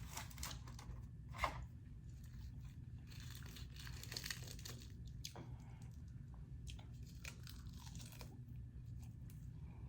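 Close-up eating sounds: faint crunching and chewing of a shrimp taco salad with crunchy parts, with a few sharp clicks and a crackly stretch about three to four seconds in, over a steady low room hum.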